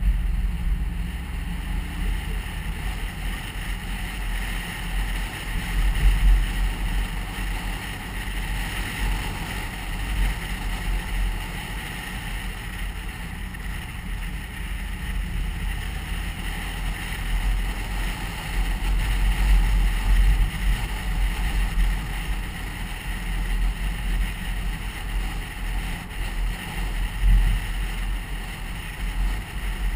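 A car's engine and tyres rumble steadily while driving through town, heard from inside the cabin, with road and wind noise that swells slightly now and then.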